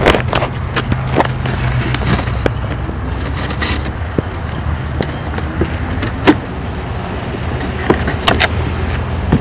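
A low steady rumble from a running vehicle, under scattered sharp clicks and knocks of a cardboard box being opened and its contents handled. The rumble eases off about two-thirds of the way through.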